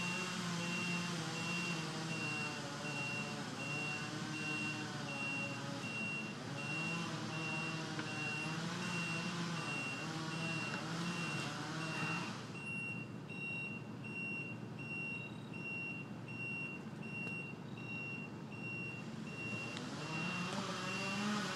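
Two-stroke chainsaw running under load as it cuts into a tree, its pitch wavering. It cuts off abruptly about twelve seconds in, and an engine note rises again near the end. A high beep repeats steadily throughout.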